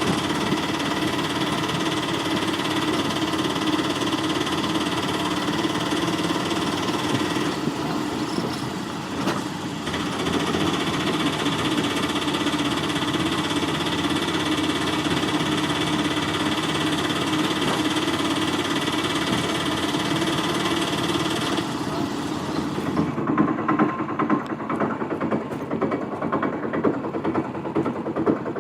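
Auto rickshaw's small engine running steadily, dipping briefly about eight seconds in. About twenty-two seconds in the high hiss falls away and the engine settles into an uneven chugging with irregular peaks.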